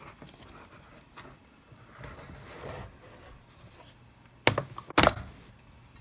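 Putty knife working in the seam of a Mac mini's case with faint scraping and small clicks, then two sharp snaps about half a second apart near the end as the case's internal tabs pop loose.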